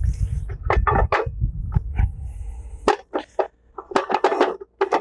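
Metal clanks and scrapes as the cover of a custom clutch housing is worked off an electric motor's flywheel and clutch, with a low rumble for the first two seconds.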